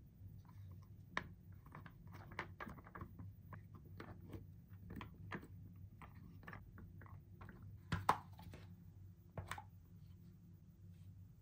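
Faint squishing and crackling of Play-Doh being kneaded and pressed by hand into a plastic ice-cream mould, with scattered sharper plastic clicks and knocks, the loudest about eight seconds in.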